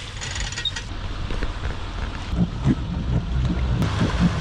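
Boat launch off a trailer: a steady low vehicle rumble with irregular knocks and creaks of trailer and hull.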